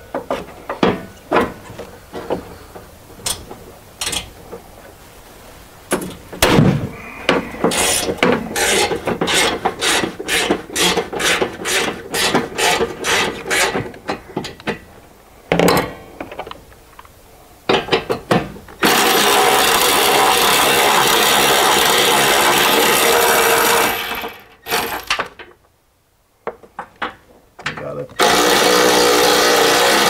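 A socket ratchet clicking in quick runs as bolts are turned. Then a steady, loud mechanical whirring runs for several seconds, breaks off briefly and starts again near the end.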